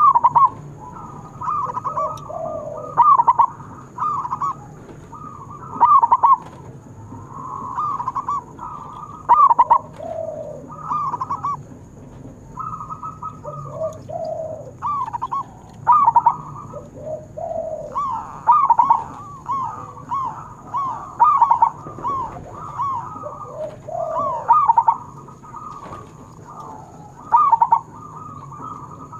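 Zebra dove (perkutut) cooing: phrases of short, rapid ringing notes, repeated every second or two.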